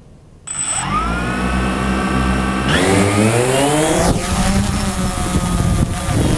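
Camera drone's electric motors and propellers spinning up with a sudden start about half a second in, then rising in pitch again as the drone lifts off and climbs, settling into a loud, wavering whine.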